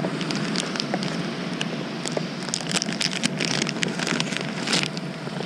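Plastic tackle packaging rustling and crinkling as hands sort through a tackle box and handle a pre-tied fishing rig in its clear plastic packet, with irregular sharp crackles that grow denser in the second half, over a steady background hiss.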